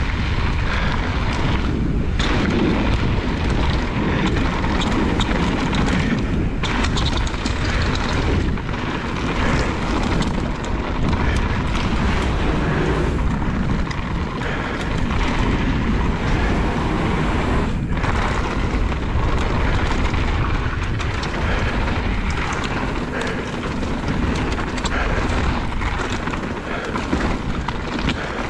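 Loud, steady wind buffeting on the microphone of a mountain bike rider's action camera, mixed with the rumble of the bike's tyres on a rough downhill trail. The noise dips for an instant a few times.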